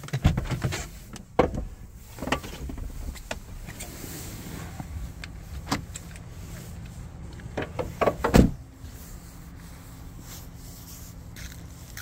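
Clicks, knocks and rustling as someone climbs out of a car through the open driver's door, with a heavy thud about eight seconds in, likely the car door being shut. A steady low hum follows.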